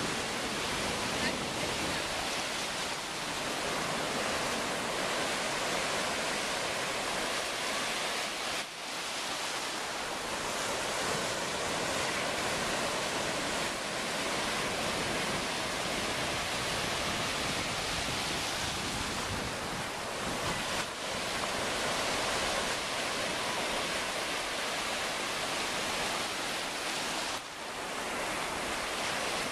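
Ocean surf breaking and washing up the shore close by: a steady, dense rush of noise, with two short dips in loudness, about a third of the way in and near the end.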